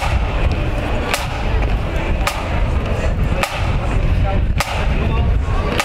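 A parade drum struck in a slow, steady beat, about one sharp hit a second, over the chatter of a crowd and a constant low rumble.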